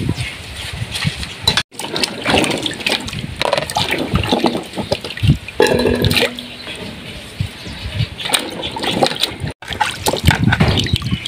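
Water splashing and sloshing: a steel cooking pot is rinsed and emptied, then peeled potatoes are stirred and lifted in a plastic basin of water. A short ringing note sounds about halfway through.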